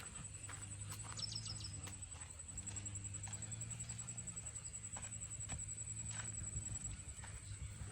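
Outdoor background with a low steady hum and a thin, steady high whine, with a short run of high chirps about a second in.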